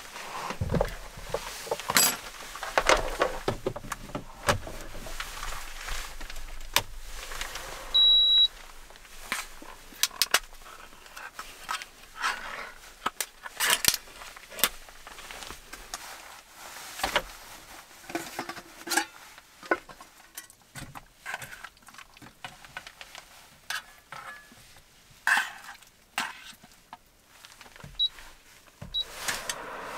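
Irregular clinks, knocks and rattles of metal cooking gear and a tin can being handled and set out, including a tin's lid being peeled back. There is one short high beep about eight seconds in.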